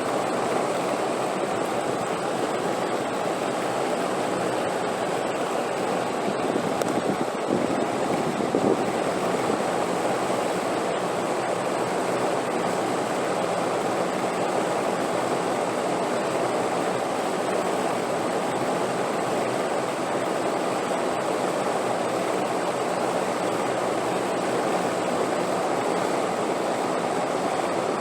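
Wind blowing steadily as an even, unbroken noise, swelling slightly about eight seconds in.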